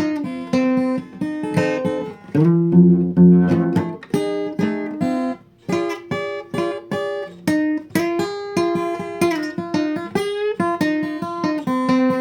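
Acoustic guitar playing a plucked, blues-style instrumental passage of single notes and chords.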